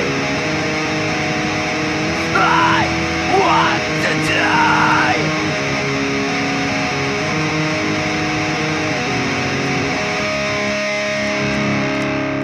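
Rock music led by electric guitar: held chords ring steadily, with a few high sliding notes about two to five seconds in.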